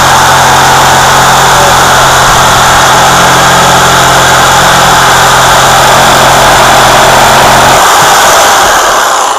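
Corded electric jigsaw running steadily as it saws through a wooden board. Its low hum stops shortly before the end, and the saw winds down with a falling whine.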